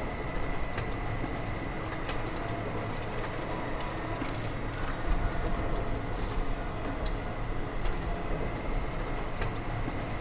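Steady hum of workshop machinery running, with a thin high whine held throughout and a few scattered light clicks.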